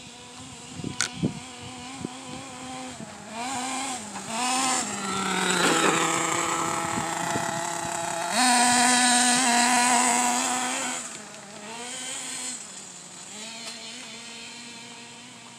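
Small two-stroke nitro engine of an OFNA RC truck running, its high buzzing note rising and falling as the throttle is worked, with a long high rev about halfway through. A couple of sharp knocks about a second in.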